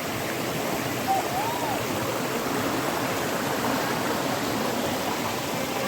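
Steady rush of flowing water from a stream and waterfall.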